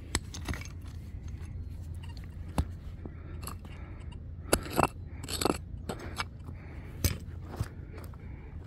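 Digging tool cutting into stony soil: scattered scrapes and crunching strikes, the loudest cluster around the middle, as a metal-detector target is dug out.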